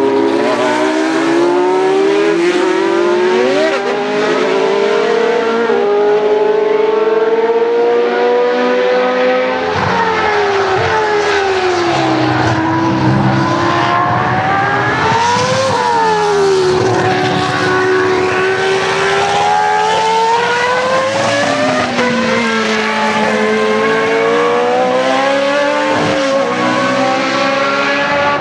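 Historic Formula 1 cars' racing engines at high revs, one car after another: the pitch climbs through the gears, drops sharply several times as they lift and change down, and rises to a peak and falls as a car passes by about halfway through.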